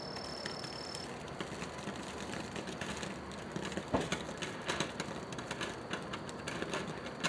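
June Bug ground firework spraying sparks, with faint, irregular crackling pops that start about a second in and one stronger pop near the middle.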